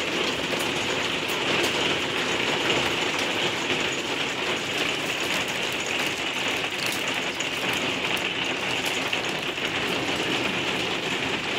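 Hail coming down hard: hailstones hitting in a dense, steady patter of countless small ticks.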